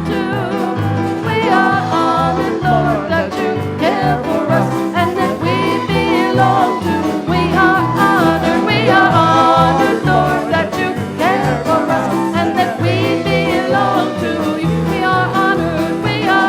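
Live worship-song music with no words sung: a wavering lead melody over a band and a bass line that plays a steady rhythm.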